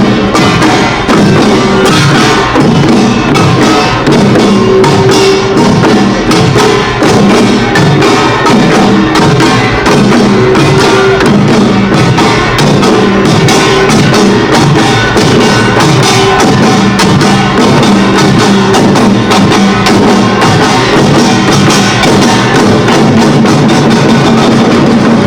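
Korean pungmul percussion band in the Imsil Pilbong nongak style playing loud, fast, unbroken rhythm together: clanging kkwaenggwari small gongs, janggu hourglass drums and buk barrel drums, with a held gong-like tone beneath.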